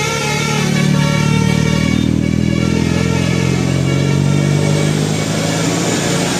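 Bus engine running as the bus drives past, while its telolet horn holds one steady note that fades away around the middle.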